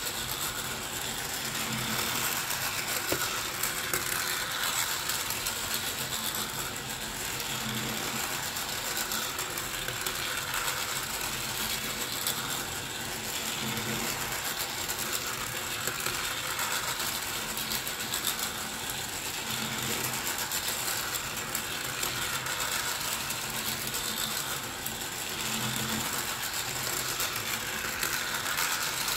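Small battery-powered plastic toy train running around its plastic track, a steady whirring, clattering gear-motor sound. It swells and fades about every six seconds as the train laps the oval.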